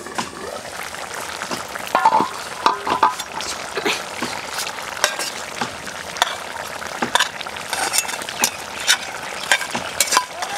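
Tilapia pieces sizzling as they fry in a metal pan, with a metal spatula clinking and scraping against the pan as the pieces are turned. A louder ringing metal clank comes about two seconds in.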